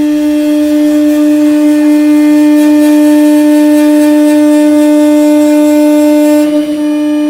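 CNC router spindle running with a steady, unchanging whine and overtones, over a hiss that stops near the end.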